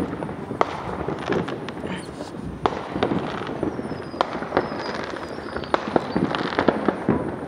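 Consumer fireworks going off in the distance from several directions: scattered sharp bangs and pops at irregular intervals over a continuous haze of fainter far-off reports. A faint falling whistle comes about midway.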